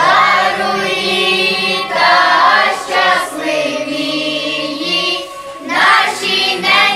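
Children's choir singing a Christmas carol.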